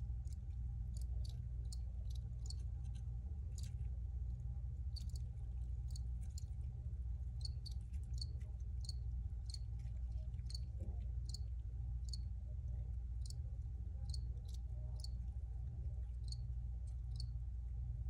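Crickets chirping: short, high chirps repeating irregularly, about one or two a second, over a steady low hum.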